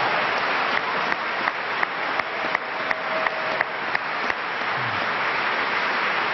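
Audience applauding steadily. One nearby clapper stands out with sharp claps about three a second through the first four seconds or so.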